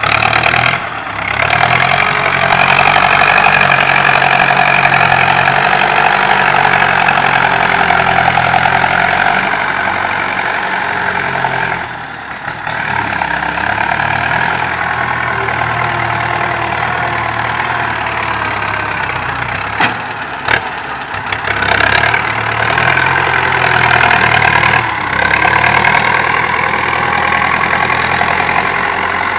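Farm tractor engine running steadily under load as it pushes and grades loose soil with its front blade, dipping briefly about twelve and twenty seconds in.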